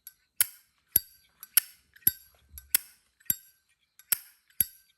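A chrome-plated brass 1994 Zippo lighter's hinged lid flicked open and snapped shut over and over: about nine sharp metallic clinks, roughly two a second, each with a brief ring. The sound is quite nice.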